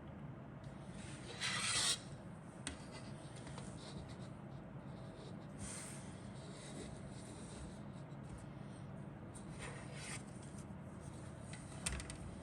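Rubbing and rustling of kit parts and packaging being handled: a few short scrapes, the loudest about one and a half seconds in, and a sharp click near the end.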